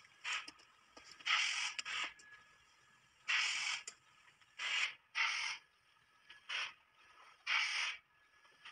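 A run of about seven short scraping, rustling noises, each under a second, from raw rubber and its plastic backing film being cut with scissors and handled against a buffed tyre casing during retreading.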